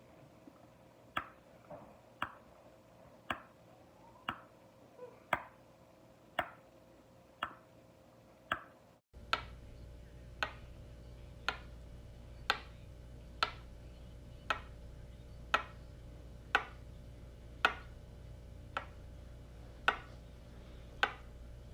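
A series of sharp ticks, uneven at first, then settling into a steady beat of about one a second over a faint hum from about nine seconds in.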